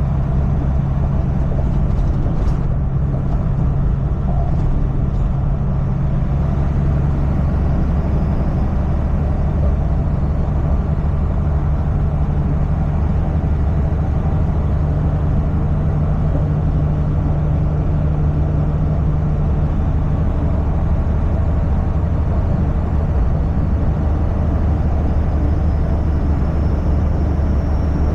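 Semi truck driving at speed: a steady low engine drone over road noise, its pitch shifting slightly twice.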